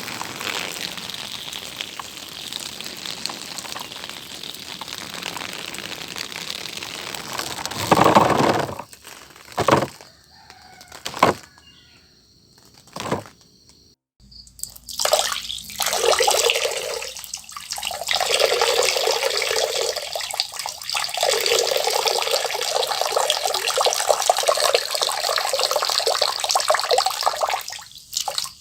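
A person urinating: a steady trickling stream, then a few short separate spurts, then a longer, louder stream broken by two or three brief pauses.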